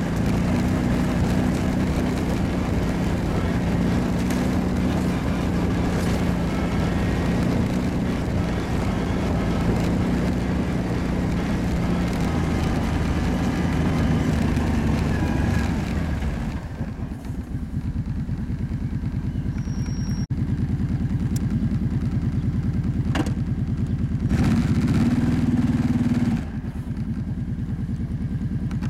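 Kawasaki ATV engine running under way with a rush of noise. About 17 s in it drops to a low, evenly pulsing idle, with a short rise in revs around 24 to 26 s in.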